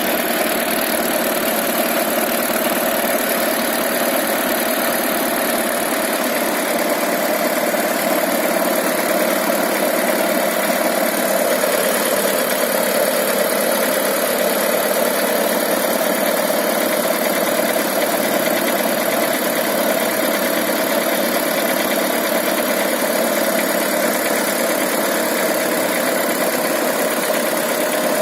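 Mitsubishi 4G93 GDI inline-four engine idling steadily with a knock, which the owner takes for a knocking piston pin (wrist pin).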